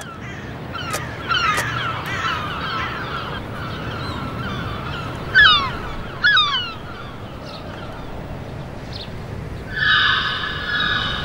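Birds calling: a run of short, downward-sweeping cries, the two loudest about halfway through, over a low steady rumble of outdoor ambience. Near the end a steadier, wavering call holds for about a second.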